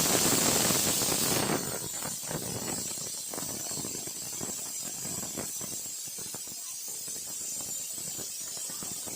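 Pressure cooker whistling: a loud blast of steam hiss from the weight valve, which eases after about a second and a half into a rapid rattling sputter as the weight keeps jiggling and venting steam.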